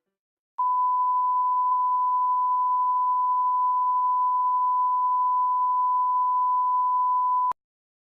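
A single steady electronic beep, one pure tone at about 1 kHz held for roughly seven seconds, which then cuts off abruptly with a click.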